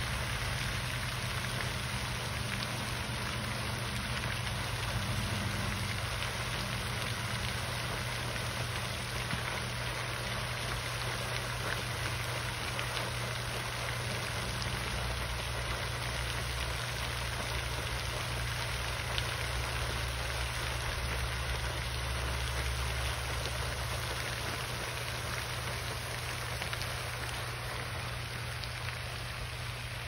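Floating lake fountain's jet falling back onto the water, a steady rain-like hiss of spray on the surface, over a steady low hum.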